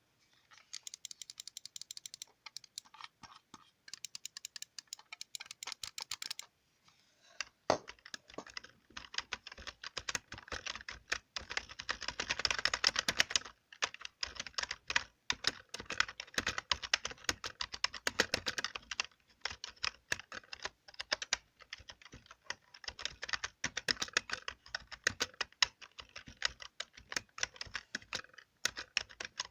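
Computer keyboard keys being tapped and typed on, with rapid clicks. For the first few seconds the clicks come as quieter, fast, even runs, then they turn into louder, dense, irregular typing.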